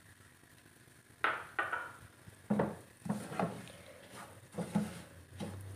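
Wooden spatula stirring and scraping semolina around a pan of melted ghee, in short irregular strokes that start about a second in. The semolina is being roasted and kept moving so it does not catch on the bottom.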